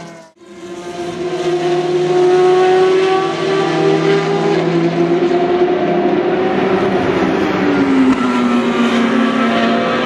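Race car engines running hard on track, with a steady high engine note that drops in pitch about eight seconds in. The sound cuts out for a moment right at the start.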